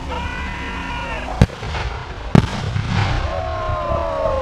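Two sharp explosion bangs from pyrotechnic charges, about a second apart, each briefly much louder than everything around it. A tone that slides down in pitch runs under them.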